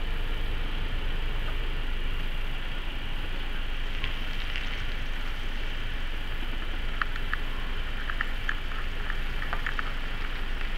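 Steady outdoor noise: a low rumble under an even hiss, with a scatter of small clicks from about seven seconds in.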